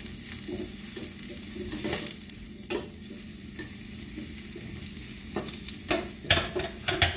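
Sliced onion and green onions sizzling in butter in a frying pan, stirred and turned with a spatula. A few sharp knocks come in the second half.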